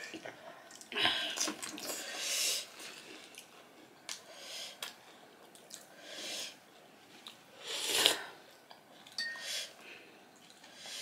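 Mouth sounds of people eating pani puri: crunching the hollow fried shells and slurping the broth, in a series of short noisy bursts, the loudest about eight seconds in.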